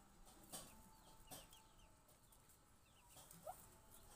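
Muscovy ducklings peeping faintly: a scatter of short, high, falling peeps, with a few soft clicks.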